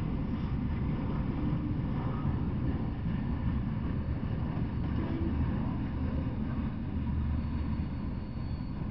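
Freight train of autorack cars rolling past, a steady low rumble of wheels on rail that eases slightly near the end, with a faint thin high whine coming in late.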